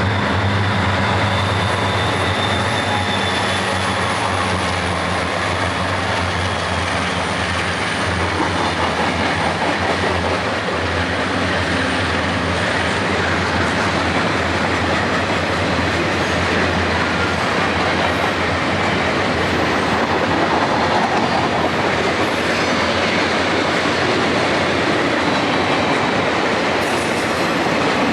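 A train passing close by: the hum of a diesel locomotive in the first dozen seconds fades, leaving the steady rumble and clickety-clack of the cars' wheels on the rails.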